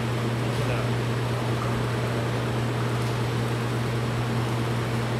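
Steady low mechanical hum with an even hiss over it, from the machinery of an aquarium tank room.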